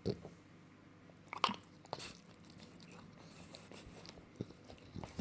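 French bulldog making a few scattered mouth noises: short, irregular wet smacks and clicks rather than steady snoring.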